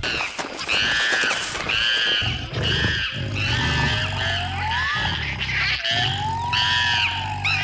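Monkeys screeching in a series of repeated high, arching calls, about one a second.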